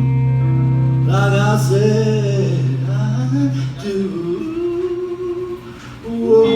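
Live soundcheck rehearsal: a man singing a melody over guitar, with a steady low note held underneath that stops about four seconds in. The music thins out briefly near the end, then comes back loudly.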